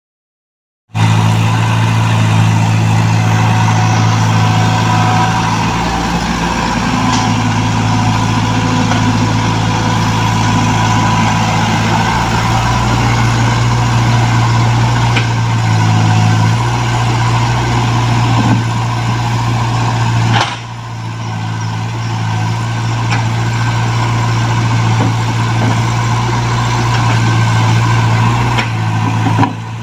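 Diesel engine of a Komatsu PC75UU mini excavator running steadily under working load, starting after a second of silence. The sound drops abruptly about twenty seconds in, then carries on.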